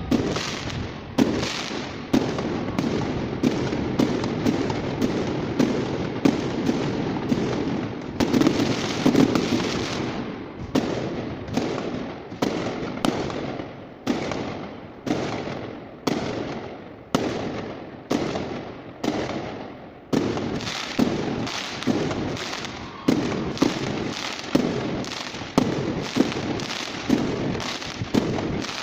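Fireworks display: a steady run of aerial shell bursts, about one to two sharp bangs a second, each fading off, with crackling between them.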